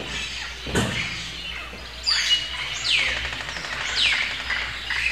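Birds calling: a series of quick, falling whistled chirps about once a second. A short thump comes about a second in.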